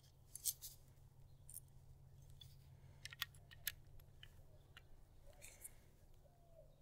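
Faint, scattered small metallic clicks and ticks as a torque screwdriver is turned to tighten a wire connector.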